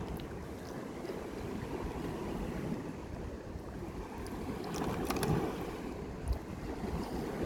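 Wind buffeting the microphone with waves washing on the shore, a steady rumbling noise. A few light clicks come about five seconds in.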